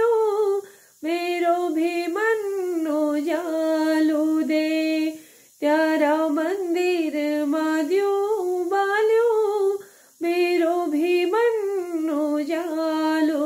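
A woman singing a devotional song about lighting a lamp at a temple, unaccompanied, in long phrases with held notes and short breaks between them.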